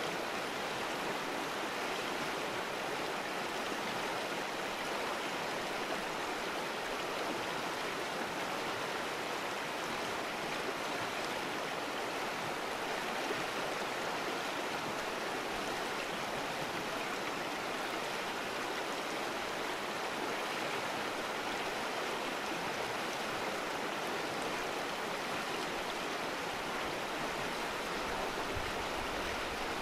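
Shallow, fast mountain river rushing over a stony bed beside a rocky bank: a steady, even rush of water with no breaks.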